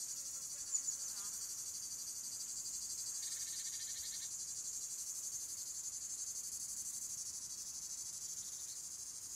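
Crickets chirring steadily in a continuous high-pitched trill. A second, lower trill joins for about a second a little past three seconds in.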